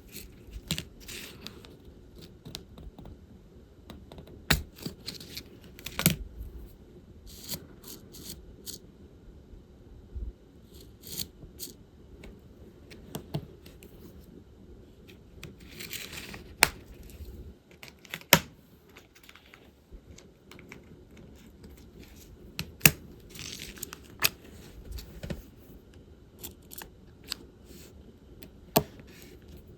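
Diamond painting work: irregular small clicks and taps as resin drills are picked up and pressed onto the canvas and tools knock on the table, with two brief rustles, one about halfway through and one a little later.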